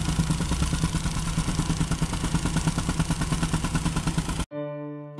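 Gas-powered soil compactor running hard, with a fast, even pounding of about ten beats a second as it tamps backfill around the piers. It cuts off suddenly about four and a half seconds in, and acoustic guitar music takes over.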